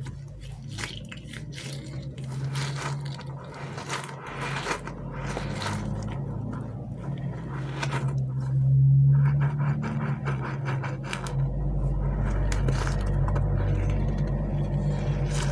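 Hands handling and squeezing squishy anti-stress toys: dense crackling and scraping over a steady low hum, loudest about nine seconds in.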